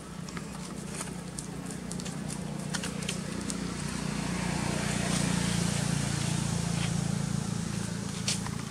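A motor vehicle's engine running nearby, a steady low hum that grows louder over the first five seconds and then holds, with scattered light clicks and scuffs on top.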